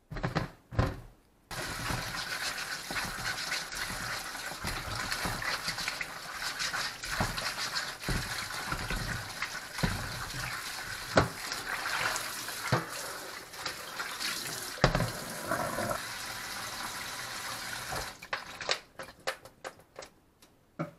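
Kitchen tap water running into a plastic basin in a stainless steel sink while Korean melons are scrubbed by hand in it, with knocks of the fruit against the basin. It opens with a few knocks as the melons are set in the basin, and the running water stops near the end, leaving scattered splashes and knocks.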